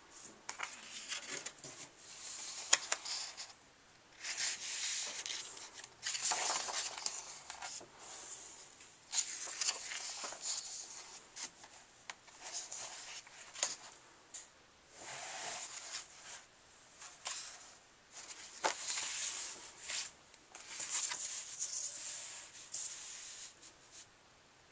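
Pages of a large paperback coloring book being turned one after another: a dozen or so swishes and rustles of paper, with a few sharp paper flicks between them.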